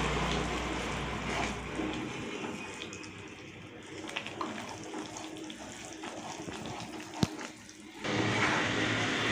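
Gram flour and oil frothing and sizzling in a pan while a wooden spatula stirs and scrapes through it; the hiss eases about two seconds in and comes back louder near the end, with one sharp click shortly before.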